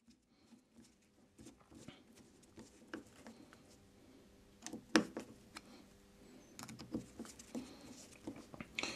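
Faint clicks and light taps of a screwdriver turning small screws into the diaphragm cover of a Stihl chainsaw carburettor, with one sharper knock about five seconds in.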